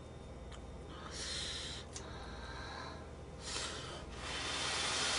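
Ramyeon noodles slurped in off chopsticks: a short slurp about a second in, then a longer, louder one from about three and a half seconds to the end.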